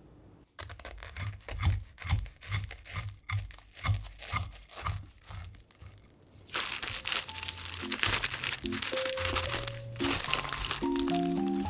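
Irregular crunching clicks, followed about halfway through by loud crinkling of a thin plastic bread bag being opened by hand, over light background music.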